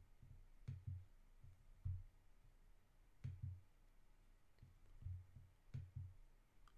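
Near silence: room tone with faint low thumps at irregular intervals, about one a second, a few of them with a light click.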